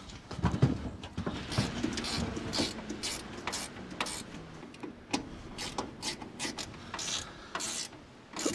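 Swivel boat seat being handled on its pedestal post: irregular clicks, knocks and rattles from the seat and its metal mount.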